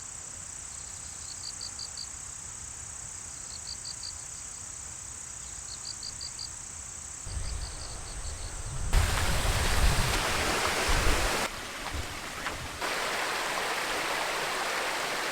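Insects chirping: short trills of four or five chirps repeating about every two seconds over a steady high-pitched drone. After about seven seconds a louder, even rushing noise with a low rumble takes over, shifting abruptly a few times.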